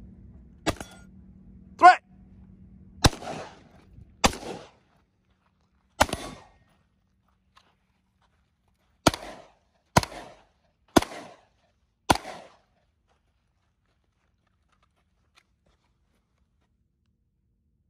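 A budget AR-15 rifle firing single semi-automatic shots, about nine in all, spaced roughly one to two seconds apart over the first twelve seconds, each shot trailing off in a short echo.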